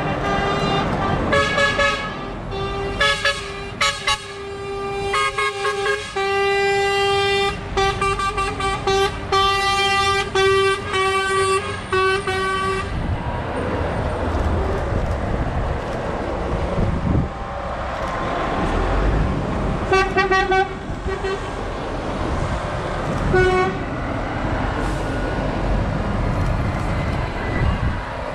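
Truck horns sounded over and over in short toots and longer blasts as lorry tractor units drive by, over the running of their diesel engines. The horns stop about halfway through, then come back as two brief toots later on.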